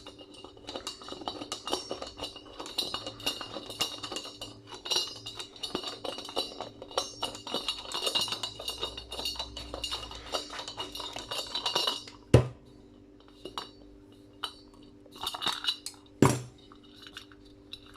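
Brass light-fitting parts clinking and rattling as the fitting is twisted and worked by hand to free a part with a damaged thread, a dense run of small metal clicks, then two sharp metal knocks later on.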